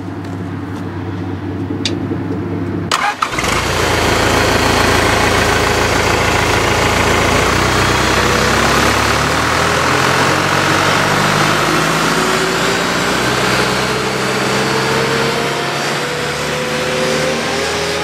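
Cummins 4BTA diesel engine of a mobile baler's power unit starting up about three seconds in, then running steadily, its pitch climbing slowly as it speeds up.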